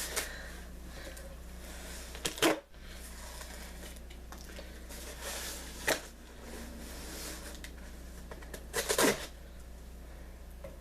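Cardboard box being handled and opened: scattered rustling and short scrapes and knocks, loudest about two and a half seconds in and again near nine seconds, over a low steady hum.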